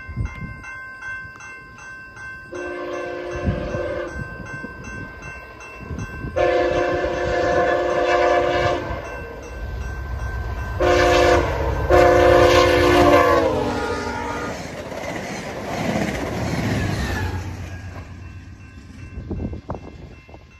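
VIA Rail passenger train's horn sounding the grade-crossing signal, long, long, short, long, with the last blast dropping in pitch as the locomotive passes, followed by the train rushing by. Crossing bells ring steadily throughout.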